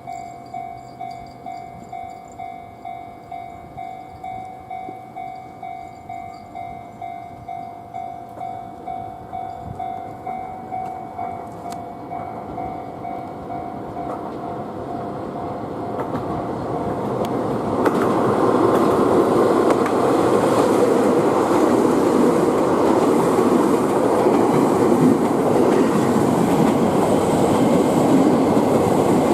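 Japanese railway level-crossing bell dinging in a steady rhythm, about one and a half strikes a second, fading out about halfway through as a train approaches. About two thirds of the way in, the train passes over the crossing with a loud, steady rumble and clatter of wheels on rails.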